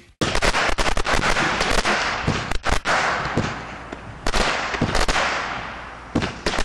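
Fireworks going off: a rapid, irregular string of sharp pops and bangs over a hissing crackle, starting suddenly about a quarter second in.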